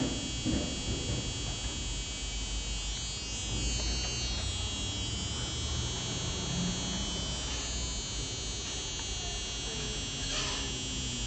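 Steady high-pitched electronic whine made of several tones held together, unchanging throughout, over a low background rumble of room noise.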